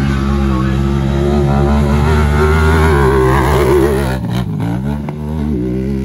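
Honda Talon race UTV's parallel-twin engine running hard at high revs, its pitch wavering as the car slides through the dirt. About four seconds in the revs drop briefly, then climb again.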